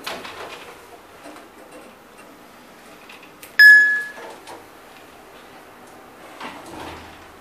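Shanghai Mitsubishi elevator giving a short, loud electronic beep about three and a half seconds in. Its stainless-steel doors then slide shut after a door-edge safety test, with a soft low thud near the end.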